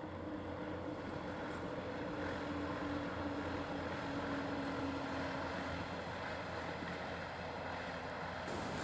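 KiHa 110 series diesel railcar running, a steady drone with a low hum and an engine note that slowly falls over the first six seconds.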